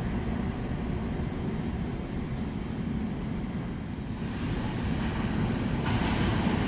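New York City Subway train rumbling through the underground station, a steady low rumble that grows louder and brighter in the last couple of seconds.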